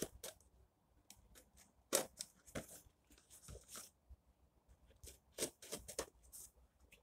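A small knife cutting and scraping along the packing tape on a cardboard box, with faint, irregular short scrapes and clicks against the cardboard. The strongest strokes come about two seconds in and again near six seconds.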